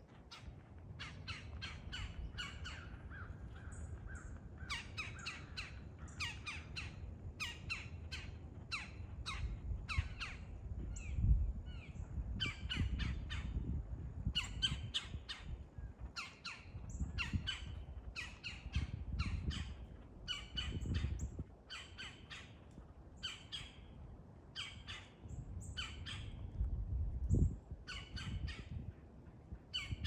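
Red-bellied woodpeckers calling in repeated runs of short, harsh notes, several a second, throughout: agitated calls of a territorial dispute. A low rumble sits underneath.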